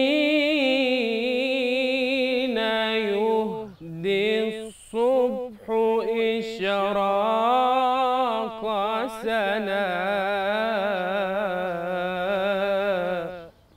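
A young male munshid sings an unaccompanied Egyptian religious ibtihal, holding long melismatic vowel phrases with quick, wavering vibrato ornaments. His voice breaks off briefly a few times around four to six seconds in, then sings one long phrase that stops just before the end.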